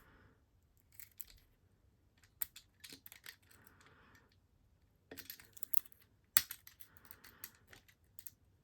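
Lock pick and tension wrench working inside a cheap lock's keyway, giving scattered light metal clicks and scrapes in irregular clusters. This is pins being raked and set under tension, and the picker suspects he is bending the soft metal inside.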